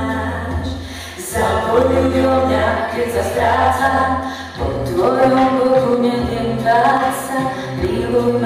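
Mixed-voice a cappella group singing in close harmony through a PA system, men's and women's voices over a sustained low bass line. The phrases break briefly about a second in and again at about four and a half seconds.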